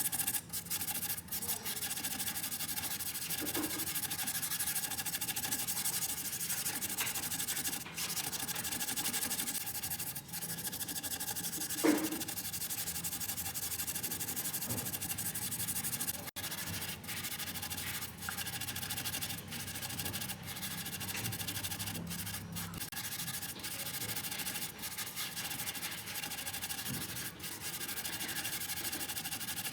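A coin being rubbed against an abrasive surface by hand, making a steady scraping rasp with short breaks between strokes, and a single knock about twelve seconds in.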